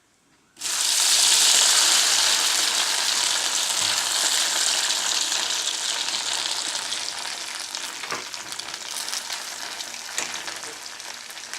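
Cubes of leftover idli dropped into hot sunflower oil: a loud sizzle breaks in suddenly about half a second in, then slowly dies down as they fry, with a couple of light clicks near the end.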